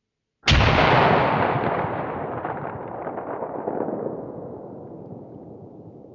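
A single hunting-rifle shot at a swimming beaver about half a second in, heard as a sudden boom that fades slowly over about six seconds, stretched out as in a slowed-down replay.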